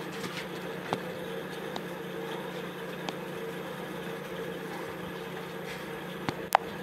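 Steady mechanical hum with a few light ticks and one sharper click near the end.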